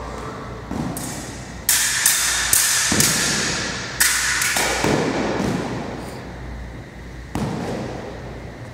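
Sabres clashing in a fencing bout: a quick run of sharp blade-on-blade strikes, each with a bright ringing tail, thickest between about one and a half and five seconds in, then a single strike near the end.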